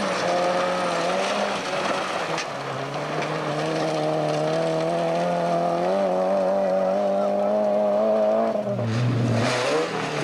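Rally hatchback's engine held at high, steady revs as it slides through a gravel corner, with gravel and tyre noise underneath. About nine seconds in, another rally car's engine takes over.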